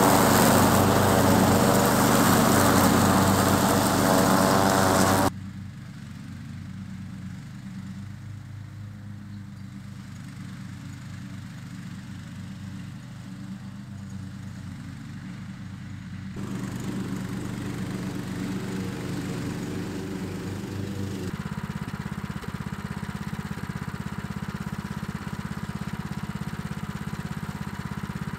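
MTD riding lawn tractor's engine running while mowing, loud as it passes close by. About five seconds in it drops abruptly to a fainter, more distant engine sound, then grows louder again in steps later on.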